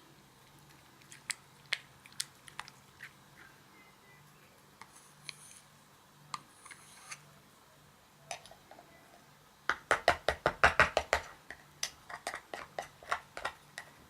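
Slime being squeezed and poked by hand, giving sharp clicking pops. The pops are scattered at first; about ten seconds in comes a fast run of them, which then slows toward the end.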